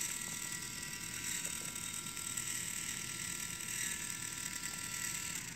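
Hobby servo's motor and gear train whining steadily as it slowly sweeps a rotating base to the far end of its range, driven at 5 volts; the whine dips slightly in pitch and stops about five and a half seconds in.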